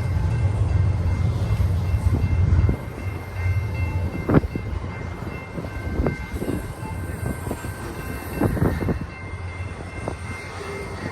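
Long double-stack freight train rolling past. A heavy low rumble drops off suddenly about three seconds in, leaving the clatter of the cars with irregular knocks and thumps of wheels over the rails.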